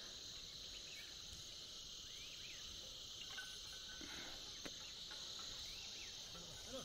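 Steady, high-pitched chorus of insects, with a few faint chirps over it and a light click a little after the middle.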